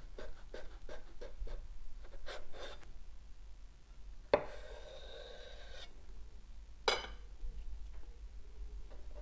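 Chef's knife sawing back and forth through a sandwich of soft bread, a rasping stroke several times a second. A sharp knock about four seconds in, followed by a longer scraping stretch, and another knock near seven seconds.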